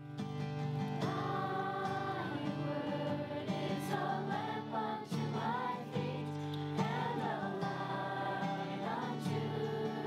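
A group of voices singing a worship song over steady instrumental accompaniment, starting abruptly out of silence.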